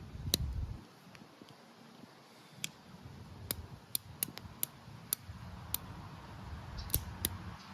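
About ten light, sharp metallic clicks at irregular spacing, from handling a small single-action .327 revolver, its cylinder and hammer clicking.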